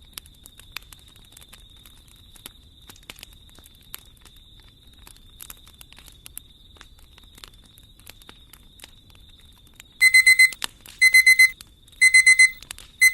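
Wood fire crackling in a fireplace with sparse sharp pops. About ten seconds in, an electronic alarm-clock beep starts, much louder than the fire: quick beeps in groups of four, about one group a second, marking the end of the timer.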